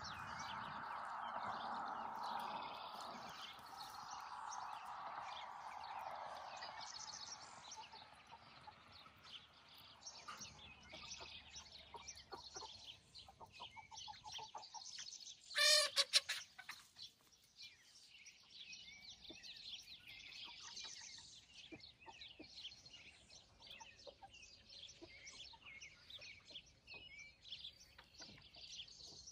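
Backyard chickens clucking and calling, with many small high chirps throughout. About halfway through, one bird gives a single short, loud call, the loudest sound.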